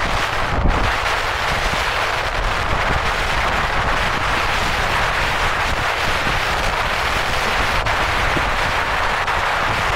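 Steady wind and road noise from a moving car, picked up by the camera's microphone, with a low, uneven rumble from wind buffeting.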